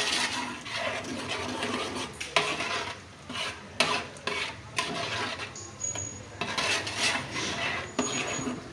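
Metal spoon stirring and scraping prawns in frying masala in an aluminium pot, in irregular strokes with several sharp clinks of the spoon against the pot.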